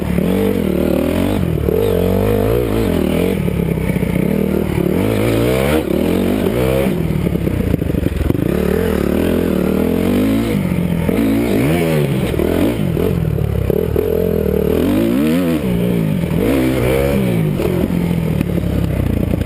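Dirt bike engine being ridden, its pitch climbing and falling back again and again as the throttle opens and closes, heard close up from the rider's own camera.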